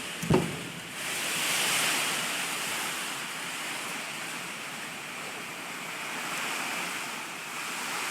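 Hurricane rain and wind: a steady rushing noise of heavy rain and gusting wind that swells about a second in. A short thump comes just before it.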